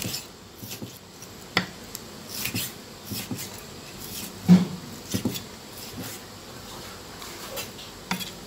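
Kitchen knife chopping raw pork on a thick wooden chopping block: irregular knocks of the blade striking the wood, the heaviest one about four and a half seconds in.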